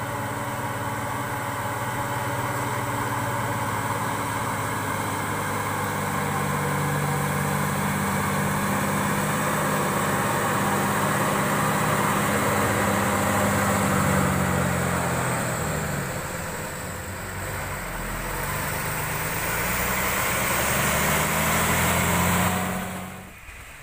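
Heavily loaded diesel truck labouring uphill as it approaches and passes, engine running steadily under load over the hiss of rain on the wet road. The engine note falls and quietens about sixteen seconds in, then climbs again; the sound cuts off suddenly near the end.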